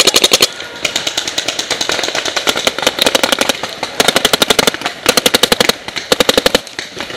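Paintball markers firing in rapid strings of about fifteen shots a second, in six bursts with short gaps between them.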